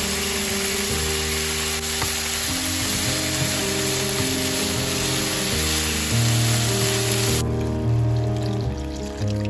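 Chicken breast rolls and sliced green onions sizzling in hot oil in a frying pan. The sizzling cuts off abruptly about seven and a half seconds in.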